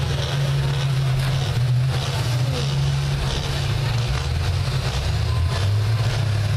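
School bus engines running steadily and loud as the buses push against one another in a demolition derby, with a few faint knocks.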